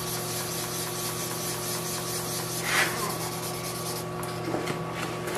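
Sandpaper rubbing back and forth by hand over car paint in wet sanding, a dry hissing scrape that eases off about four seconds in. A steady low hum runs underneath.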